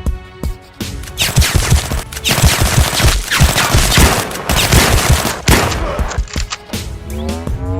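Rapid bursts of gunfire-style shots in a Nerf blaster fight, densest through the middle, with music underneath. Near the end a rising tone begins.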